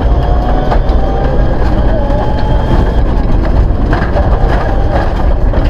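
Cabin noise of a Mitsubishi Lancer Evolution IX rally car at speed on gravel: its turbocharged four-cylinder engine and drivetrain running with a loud, steady rumble, with stones and gravel clicking against the underside.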